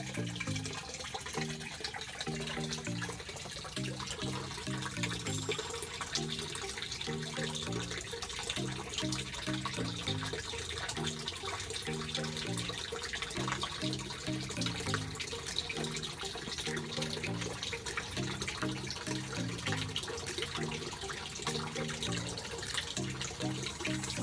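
Steady rushing of water, pond water being drawn off through a siphon hose to clean dirt from the tank floor. A low melody of short repeating notes runs underneath.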